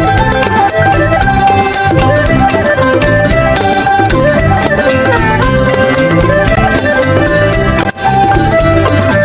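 Traditional-style music: a sliding melody over plucked strings and hand drums with a steady beat.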